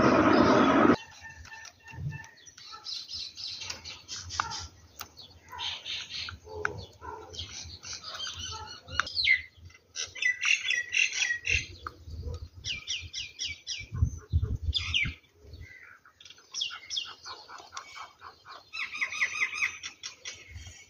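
Black francolin giving short, high chirping calls in quick clusters, over and over. A loud scraping noise fills the first second, and a couple of dull thumps come about two-thirds of the way through.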